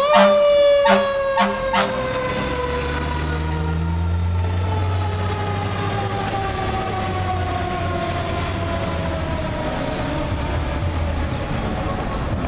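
Fire engine siren winding down in one long, slowly falling wail as the truck drives off. A few short horn blasts come in the first two seconds. The engine rumbles low as the truck pulls away.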